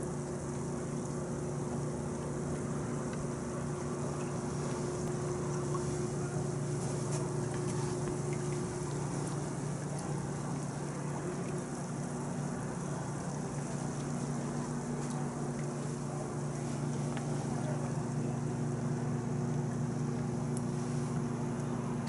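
Hot tub with its jets running: a steady pump motor hum under churning, bubbling water.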